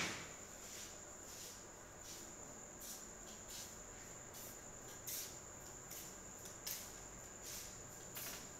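Faint crickets chirping in a steady high trill, with a few short scratchy bursts over it, the clearest about five and nearly seven seconds in.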